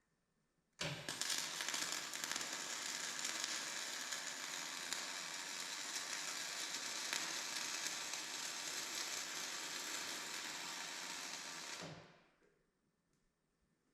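Electric arc welding a bead on the cracked steel arm: a steady crackling sizzle that strikes up about a second in and stops about eleven seconds later.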